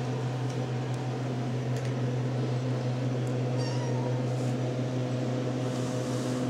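A steady low hum throughout, with a RagaMuffin kitten giving a faint, short, high mew about three and a half seconds in.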